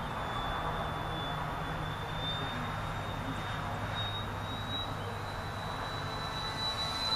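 Radio-controlled model airplane's motor and propeller running in flight: a steady high whine that drifts slowly higher in pitch over a rushing haze.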